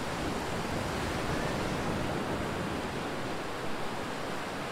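Surf breaking on a sandy beach: a steady, even rush of waves.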